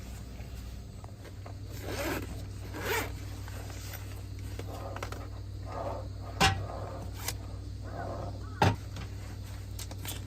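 A series of short scraping, rustling swishes with two sharp knocks, over a steady low hum.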